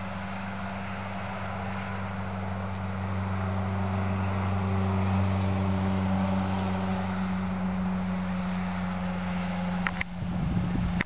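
A steady engine hum, growing louder over the first half and easing off a little after. About ten seconds in come a few sharp clicks and bumps of camera handling.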